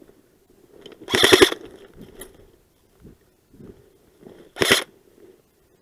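Airsoft gun firing two short bursts: a quick string of four or five shots about a second in, and a shorter burst of two or three near the end.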